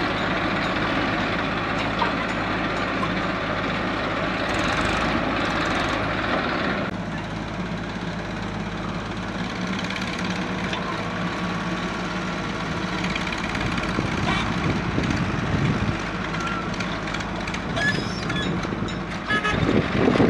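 Diesel engines of a JCB 3DX backhoe loader and Massey Ferguson tractors running steadily while the backhoe digs and loads soil. There are a few short knocks near the end.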